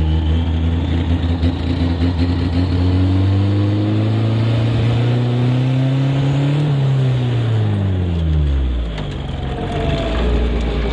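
Turbocharged KA24DE-T 2.4-litre inline-four in a Datsun 510, heard from inside the cabin, accelerating at full throttle. Its pitch climbs steadily for about six and a half seconds, then drops quickly as the throttle is released and settles to a low, steady note near the end.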